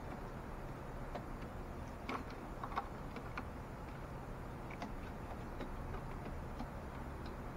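Crows pecking and stepping on a wooden deck and a plastic water bowl: scattered sharp clicks and taps at irregular times, a cluster of louder ones about two to three and a half seconds in, over a low steady background hum.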